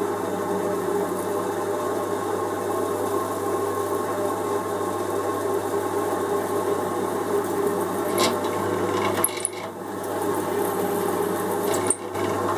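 Milling machine spindle running with a counterbore cutter cutting a flat-bottomed counterbore in aluminium plate: a steady motor hum with the rough scrape of the cut. Two sharp clicks come about eight seconds in and near the end.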